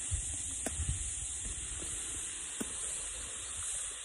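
Steady, high-pitched chorus of cicadas, with low wind rumble on the microphone and a few faint knocks.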